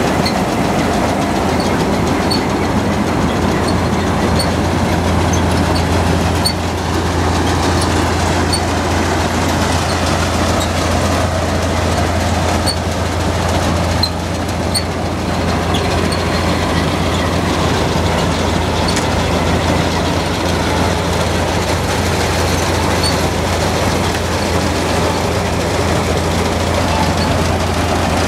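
Combine harvester carrying a MacDon 972 draper header, running steadily with a low hum and a continuous mechanical clatter, and a light tick roughly once a second.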